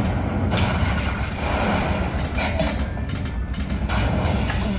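An Aristocrat Lightning Link slot machine playing its loud win-celebration sound as the bonus win counts up after the free spins. It is a steady, dense rumble.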